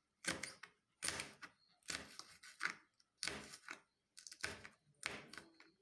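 Kitchen knife slicing banana pepper into rings on a plastic cutting board, the blade knocking on the board with each cut. There are about nine cuts at an uneven pace, roughly one or two a second.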